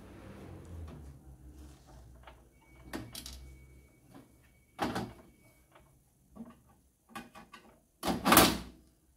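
Scattered clicks and knocks of a screwdriver and metal parts being handled while the cover of a CCTV power supply is taken off, with a louder clatter lasting about half a second near the end.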